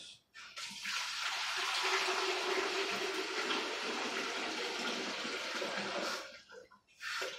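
Water pouring steadily into the stainless-steel bowl of a spiral dough mixer, the first stage of mixing bread dough. It starts about half a second in and stops about six seconds in.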